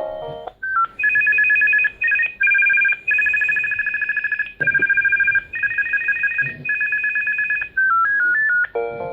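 Binatone cordless phone handset playing ringtone previews: mostly a rapid electronic two-tone trill in several bursts of a second or so. It is framed by brief snippets of a polyphonic ringtone melody at the very start and near the end.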